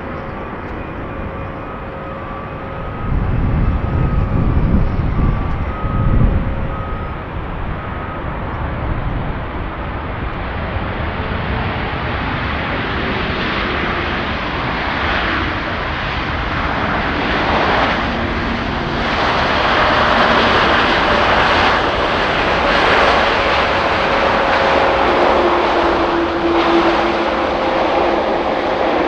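Air Canada Boeing 787-9 Dreamliner's jet engines, growing louder and brighter as the aircraft comes closer, with a few steady tones shifting in pitch. A burst of low rumble comes between about three and six seconds in.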